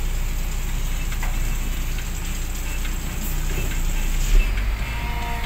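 UD Croner garbage truck's diesel engine running with a steady low rumble, a few light clicks and a brief thump about four and a half seconds in.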